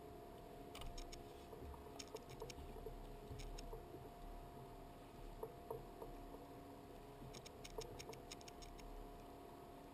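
Faint clusters of small sharp clicks and taps, in short runs about one, two, three and a half and seven to nine seconds in, over a steady low hum.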